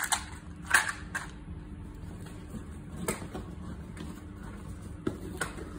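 A few light clicks and knocks as a plastic compartment box of small parts and hand tools are put down and moved about, the strongest under a second in, over a faint steady hum.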